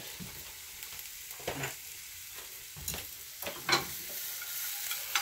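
Food sizzling in a frying pan with a steady hiss, stirred now and then: several short scrapes of a utensil against the pan.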